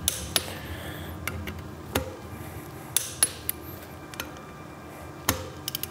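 Scattered sharp metallic clicks and clinks of a torque wrench and socket working the rotor's Torx bolts, each bolt being torqued down in turn.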